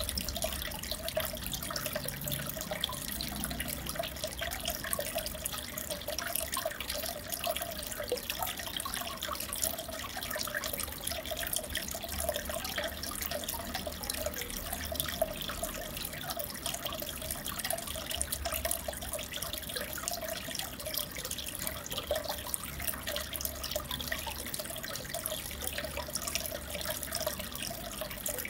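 Aquarium water bubbling and trickling steadily, with fine crackling of bursting bubbles over a low hum that comes and goes.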